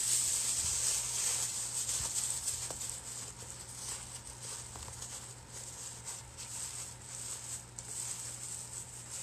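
Thin plastic shopping bag crinkling and rustling as it is scrunched up and pushed by hand into a stuffed fabric pumpkin, loudest at the start and softer after.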